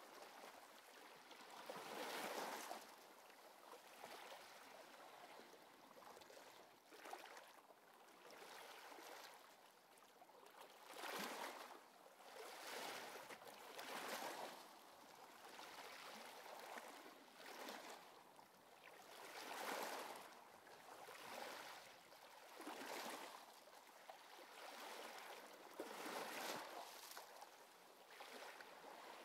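Faint sea-wave sound: soft swooshes that swell and ebb every two to three seconds, like surf washing up a beach.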